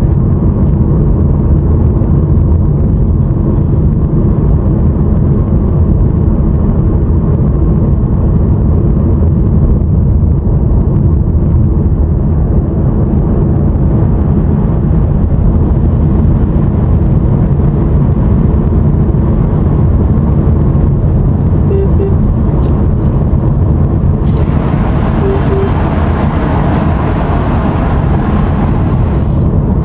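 Steady road noise of a car at speed, heard inside the cabin: a low engine and tyre rumble. About 24 seconds in, a hissing tyre noise suddenly grows louder and brighter as the car drives into a road tunnel.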